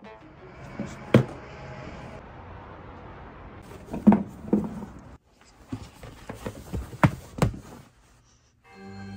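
About five sharp knocks over a low steady hiss: one just after a second in, a pair about four seconds in, and a pair about seven seconds in. The hiss drops out to near silence twice.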